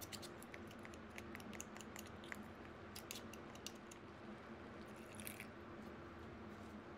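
Faint, small clicks and soft squishes of a metal spoon scraping thick Dijon mustard out of a plastic measuring cup onto mayonnaise in a ceramic bowl. A low steady hum runs underneath.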